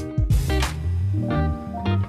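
Background music led by plucked guitar over low bass notes.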